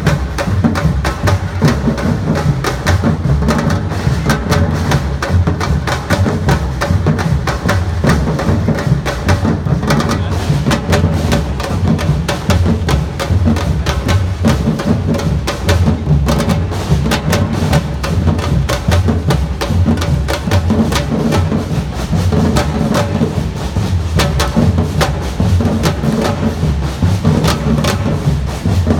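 Samba-reggae drum band playing: deep bass drums beat a repeating pattern under rapid, sharp snare and high drum strokes, in a steady, dense rhythm.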